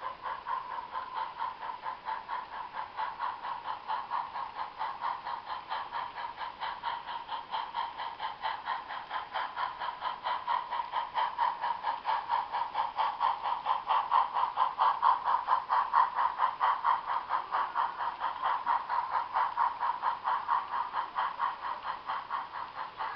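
HO scale IHC/Mehano 2-8-0 Consolidation model steam locomotive running with its train: a steady motor and gear whine with a rapid, even pulsing. It grows louder about two-thirds of the way through as the train passes close, then eases off.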